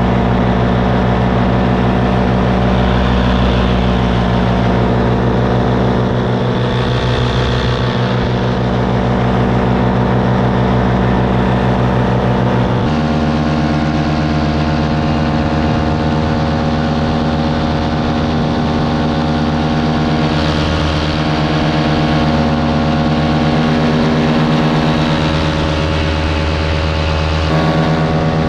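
Small aircraft engine and propeller droning steadily in flight, heard from on board. The engine note shifts abruptly about 13 seconds in and changes again slightly near the end.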